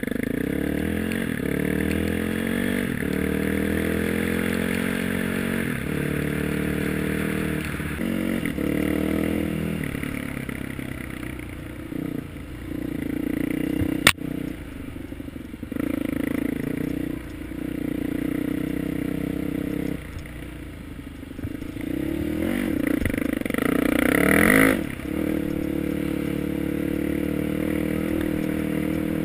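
Dirt bike engine under way on a trail, rising and falling in pitch as the throttle is opened and closed, with hard revving about two-thirds of the way through. A single sharp knock about halfway through.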